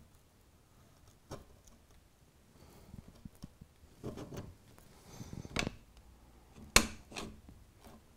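Light knocks and rubbing as a spirit level is handled against a threaded steel rod and the baseboard, with one sharp knock a little before the end.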